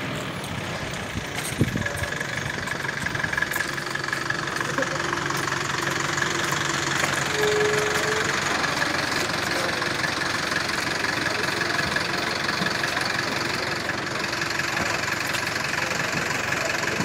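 A vehicle engine idling steadily under outdoor background noise, with one sharp knock about one and a half seconds in.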